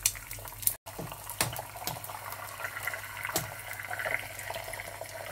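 Eggs frying in hot extra virgin olive oil in a nonstick pan, the oil sizzling steadily with frequent crackles and sharp pops.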